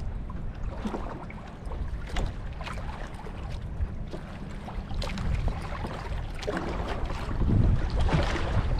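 Waves slapping and splashing against the hull of a small outrigger canoe, with wind rumbling on the microphone. The sea slaps come as many short knocks and swell up louder near the end.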